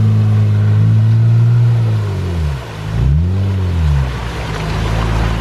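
Jeep engine running at high revs under load, its pitch holding steady, then dropping about two and a half seconds in, swinging up and back down, and settling again.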